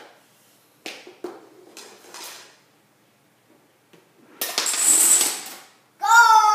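A line of dominoes toppling in a quick clattering run lasting about a second and a half, after a few light clicks of the pieces being handled. Right after, a child squeals.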